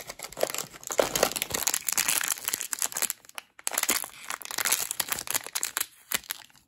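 Small wrapper bag of an advent-calendar surprise crinkling and crackling as it is handled and opened by hand, with a short pause about halfway through.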